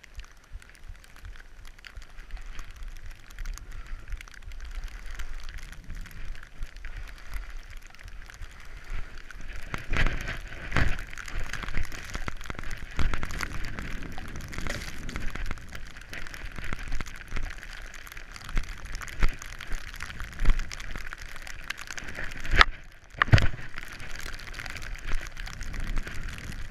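Skis running through deep powder snow, with snow spray pattering against the helmet camera and wind rumbling on the microphone; a few sharper knocks, two near the end.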